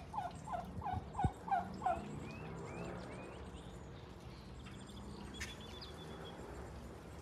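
Turkeys calling: a quick series of about six short, falling notes over the first two seconds, followed by quieter wavering calls. Faint small-bird chirps sound in the background.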